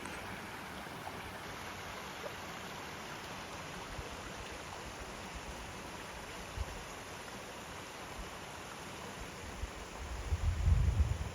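Steady rush of flowing water from a small stream. Near the end, a louder low rumble of wind buffets the microphone.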